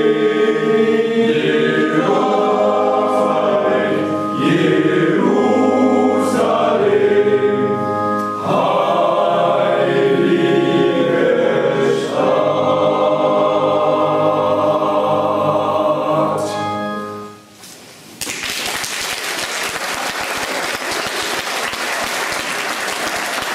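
Men's choir singing unaccompanied, its song ending about seventeen seconds in; after a brief pause the audience applauds.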